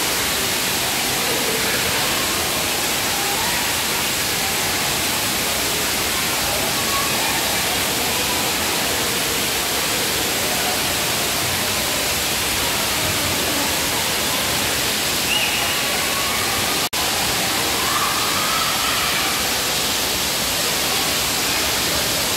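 Water-play jets and fountains spraying and splashing down onto a play structure: a steady, even rushing hiss, with faint voices in the background and a momentary drop-out about seventeen seconds in.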